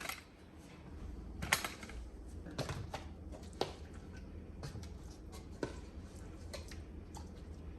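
Kitchen handling sounds as raw chicken is worked together with a blended jerk seasoning marinade: scattered light clicks and knocks over a low steady hum.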